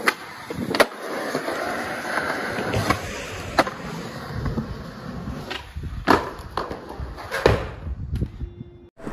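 Skateboard wheels rolling on concrete, with a handful of sharp clacks of the board hitting the ground as tricks are popped and landed.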